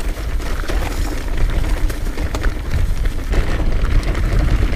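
Heavy wind rumble buffeting the action camera's microphone as a mountain bike, a Trek Remedy 9.7, rolls downhill, with scattered sharp clicks and rattles from the bike over rough trail.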